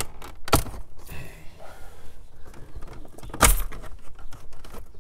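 Plastic dash trim panel around a 2006 Nissan Sentra's radio being pried off with a plastic panel tool: two sharp snaps as it pops free of its clips, about half a second in and again about three and a half seconds in, with lighter plastic clicks and rubbing between.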